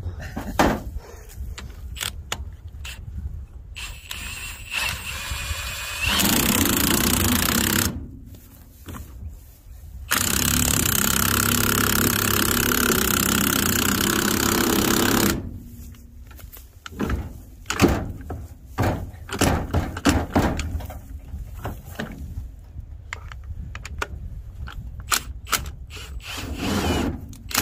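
Cordless impact wrench running on an old car's front wheel hub in two long bursts, one of about two seconds and then one of about five, while the brake drum and hub are being worked off. Between the bursts are metallic clanks and knocks of tools against the hub.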